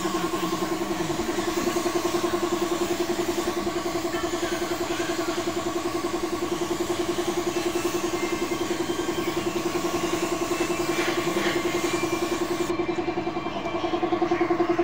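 Air compressor running steadily with a fast, even throb, under the hiss of an air spray gun spraying paint. The hiss thins out near the end while the compressor keeps running.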